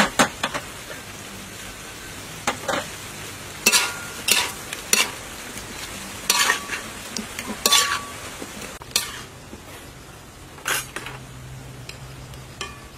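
A metal spatula scraping and clanking against a metal wok at irregular moments, about a dozen strokes, a few ringing briefly, while meat and vegetables are stir-fried over a steady sizzle.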